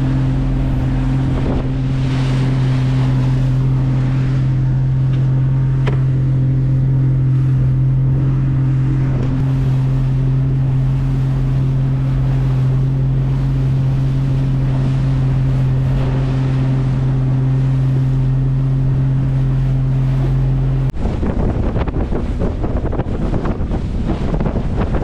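Boat engine running with a loud, steady low hum, mixed with wind and sea noise. About 21 seconds in, the hum stops abruptly and wind buffeting the microphone takes over.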